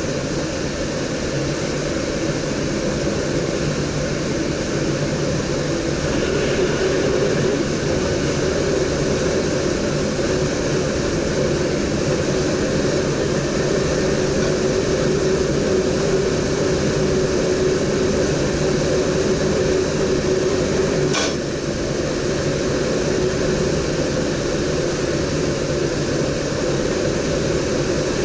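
Running noise of an NS DDZ electric double-deck train heard in the driver's cab: a steady rumble and hiss while under way. A steady whine comes in a few seconds in. It stops with a sharp click about three quarters of the way through, and after that the running noise is slightly quieter.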